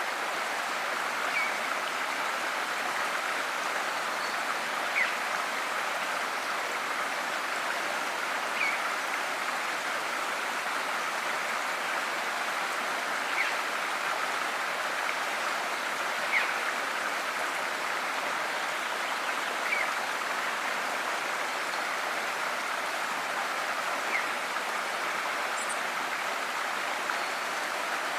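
Steady rushing of a flowing river, with a short bird chirp every few seconds.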